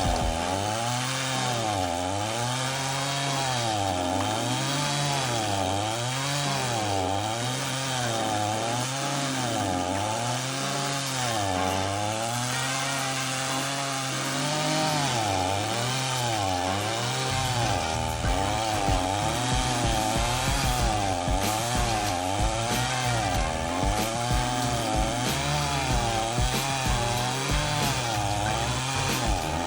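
Chainsaw engine fitted with a stump-grinder attachment, running hard while grinding a tree stump. Its pitch rises and falls in a steady rhythm about once a second, and from a little past halfway a heavier, rougher low rumble joins in.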